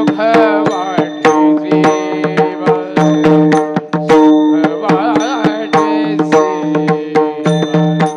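Marathi Warkari devotional bhajan: a male voice sings an ornamented, wavering melodic line over a sustained drone. Pairs of small brass hand cymbals (talas) and a hand drum strike a steady rhythm.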